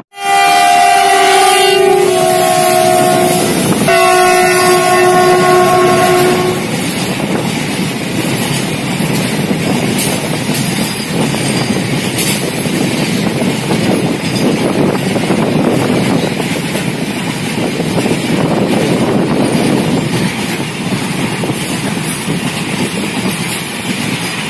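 Diesel locomotive horn sounding two long multi-tone blasts, the first with a small drop in pitch partway through. After that a double-stack container freight train rolls past close by, its wagon wheels clicking steadily over the rail joints.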